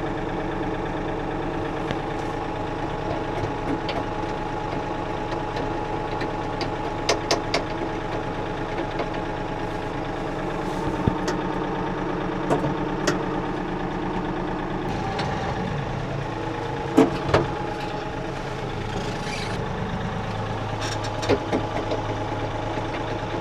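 Kioti 3520 compact tractor's diesel engine idling steadily, with a scattering of sharp clicks and clunks over it, the loudest pair about two-thirds of the way in.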